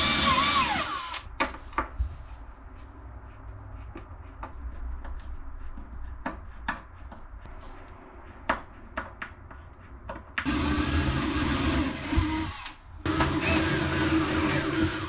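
A power drill runs in two steady spells of about two seconds each in the second half, drilling to move a wardrobe shelf, with a short spell of drill noise at the very start. In between come scattered light clicks and knocks of handling.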